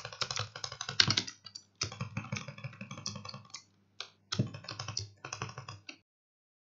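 Razer Huntsman Mini 60% keyboard: rapid, dense keypresses clacking in quick runs with brief pauses, cutting off suddenly about six seconds in.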